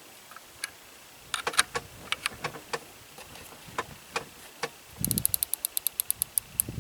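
Air rifle being handled between shots: scattered light clicks and knocks, then, about five seconds in, a soft thump followed by a quick, even run of about a dozen clicks.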